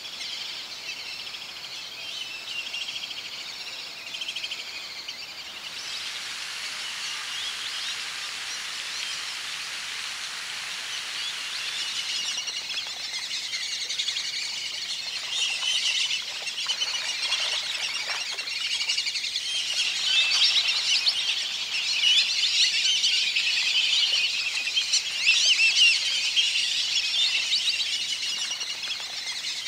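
Many birds calling at once: a dense chorus of high chirps and whistles that grows louder and busier in the second half.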